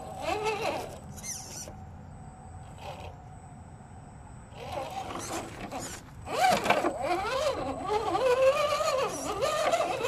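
Electric motor and geartrain of an RGT 86110 RC rock crawler whining as it climbs rock, the pitch rising and falling with the throttle; the whine grows loud from about six seconds in.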